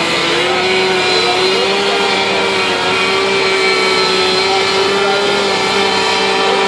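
An engine running at a steady high speed, a loud constant drone with a held whine.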